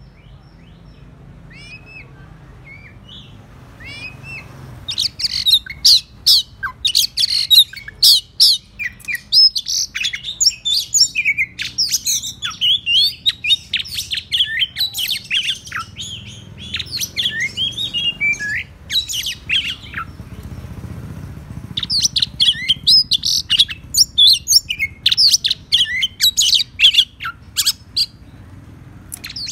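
Oriental magpie-robin singing loudly in fast, varied phrases of sharp whistles and rapid notes, after a few soft calls. It breaks off briefly about two-thirds through, then carries on. This is the aggressive territorial song that a decoy bird uses to call out a rival magpie-robin.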